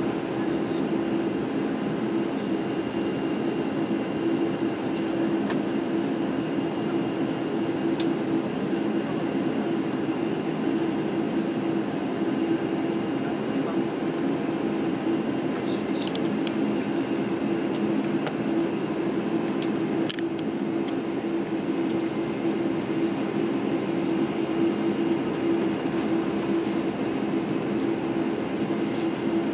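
Cabin noise of a Boeing 747-8i taxiing: its GEnx engines running at low taxi thrust with a steady hum, mixed with the rush of cabin air-conditioning. A few light clicks stand out, around a quarter, half and two-thirds of the way through.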